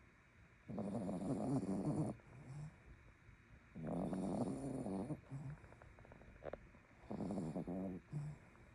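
A sleeping dog snoring: three long snores, each about a second long and about three seconds apart, each followed by a short, lower sound.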